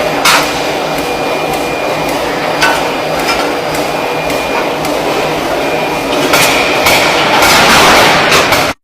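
Hammer blows striking metal in a forge, a few separate strikes over a steady din of workshop machinery that grows louder near the end, then cuts off abruptly.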